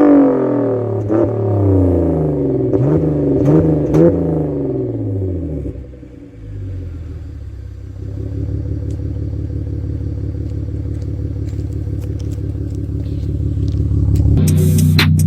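BMW E46 320Ci's 2.2-litre straight-six heard through its exhaust with the rear silencer (back box) deleted: a few quick revs that fall away, then a steady idle from about six seconds in.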